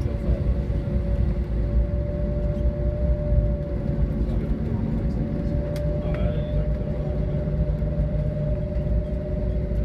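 Cabin noise of an Airbus A320-family jet rolling on the ground after landing: a steady low rumble from the wheels and idling engines, with a steady hum of two held tones.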